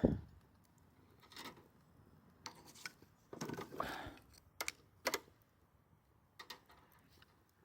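Cooking gear being handled over a campfire: a sharp thump at the start, then a handful of light clicks and knocks spread over the following seconds.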